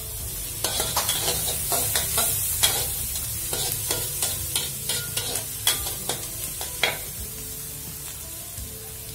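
Metal spatula scraping and clacking against an aluminium wok as chopped garlic and onion sizzle in melted margarine. The strokes come irregularly, several a second, and thin out after about seven seconds, leaving the sizzle.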